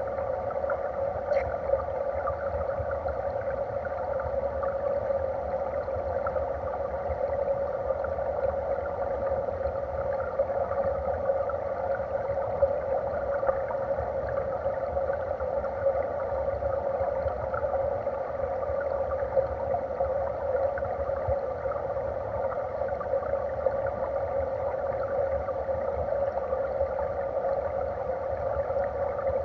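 Steady, muffled rush and gurgle of stream water heard through an underwater camera, with a fine crackle over a low rumble.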